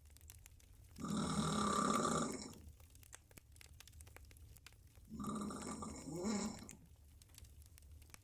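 A woman snoring loudly with her mouth open while lying on her back: two snores, each about a second and a half long, roughly four seconds apart, with quiet breathing between.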